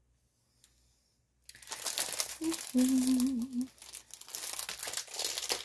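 Clear plastic packaging around a rolled diamond painting canvas crinkling as it is picked up and handled, starting about a second and a half in. A short wavering hum from a person's voice comes in the middle.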